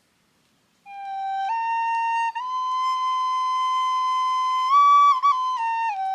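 Native flute playing a slow melody. It enters about a second in, steps up through a few notes to a long held tone, rises briefly with a quick dip, then steps back down to its lower note near the end.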